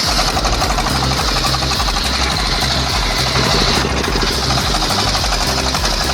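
Engine-driven machine running steadily with a rapid pounding rhythm.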